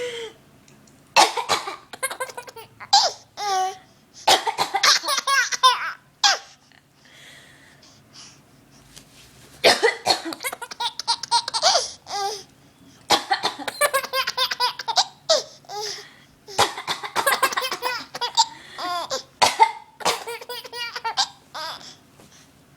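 A woman coughing and a baby laughing at the coughs in repeated rounds, about six bursts of coughs and giggling laughter separated by short pauses.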